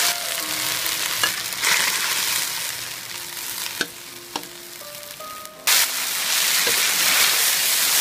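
Water spinach and garlic stir-frying in very hot oil in a wok: a loud sizzle, with a metal spatula knocking against the wok three times. The sizzle eases off in the middle and swells again suddenly after about five and a half seconds.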